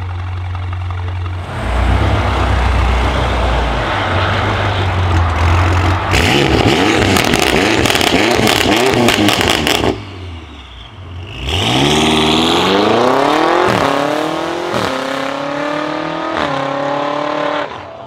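BMW M5 F90's twin-turbo V8 with a Remus exhaust and Supersprint downpipes, running loud and rough, then revved with a burst of sharp crackles and pops. After a brief lull it accelerates hard, its pitch rising and stepping back down at several upshifts.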